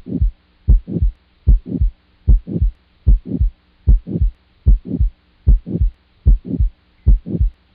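Recorded heart sounds of aortic stenosis: a steady lub-dub of S1 and S2, about ten beats at roughly 78 a minute. A swishing crescendo-decrescendo systolic murmur falls between each S1 and S2. A faint steady hum and hiss lie underneath.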